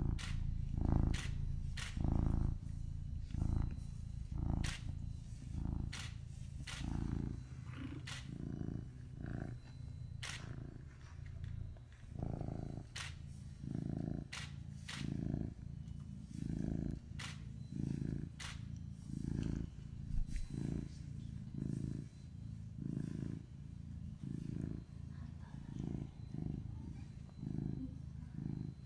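Domestic cat purring close to the microphone, a steady low rumble that swells and falls about one and a half times a second with each breath in and out. Now and then there is a sharp click.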